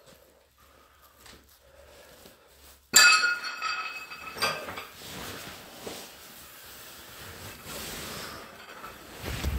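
Glassware clinking: a sharp chink about three seconds in that rings on for about a second, then a smaller clink a moment later. A low thump comes at the very end.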